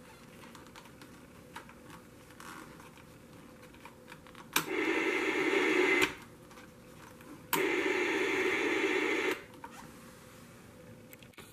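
Static hiss from a portable TV-lantern's built-in speaker, switched on with a sharp click twice: about a second and a half of hiss starting four and a half seconds in, then about two seconds more starting seven and a half seconds in. Faint handling noise from the controls between them.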